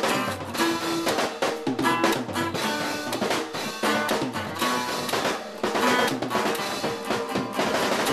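Music led by a drum kit, with snare and bass drum hits over held notes from pitched instruments.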